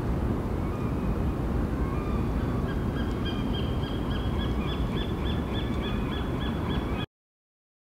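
Wind buffeting an action camera's microphone, a dense rough rumble, with a bird's high, rapidly repeated chirping over it from about three seconds in. The sound cuts off abruptly about seven seconds in.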